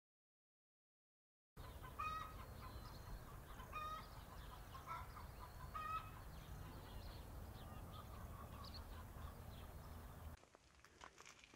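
After about a second and a half of silence, birds call outdoors: three short, clear calls about two seconds apart, then fainter chirps, over a steady low rumble.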